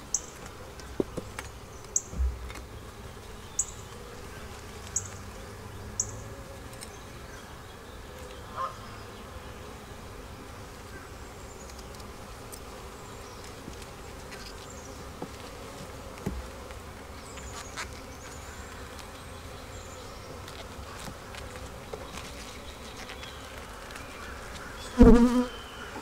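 Honeybee colony buzzing steadily around an open hive full of bees, with a few small clicks in the first several seconds and one short, louder pitched sound near the end.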